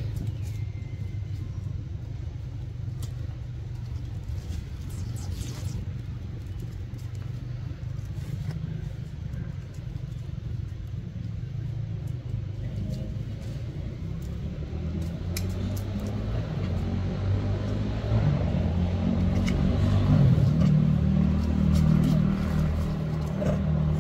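A steady low rumble that swells louder about two thirds of the way through, then eases a little near the end.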